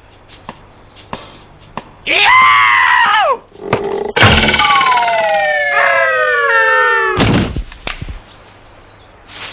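Cartoon sound effects: a short pitched tone that rises and falls about two seconds in, then a sharp crack followed by a long falling whistle of about three seconds, ending in a heavy thud.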